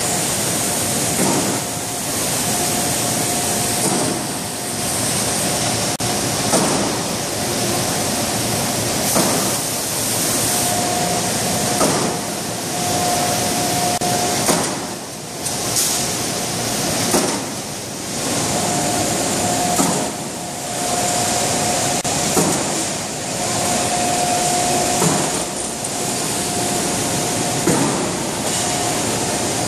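Sheet-metal cut-to-length line running: a steady machine din with a whine that comes and goes, and a clank about every two and a half seconds as the shear cuts.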